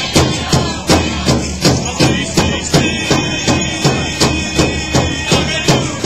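Powwow drum song: a large drum struck in a steady beat, about three strokes a second, with voices singing over it.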